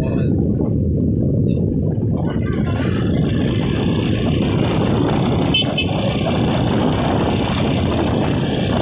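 Steady rumble of a vehicle on the road with heavy low wind noise on the microphone. Two short high beeps sound a little past the middle.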